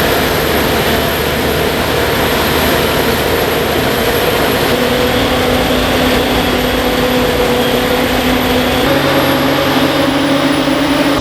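Heavy diesel harvest machinery running steadily, with a thin high whine above the engine noise that dips slightly near the end.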